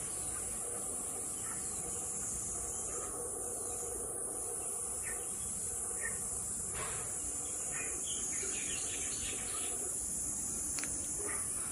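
Steady high-pitched chorus of insects, even and unbroken.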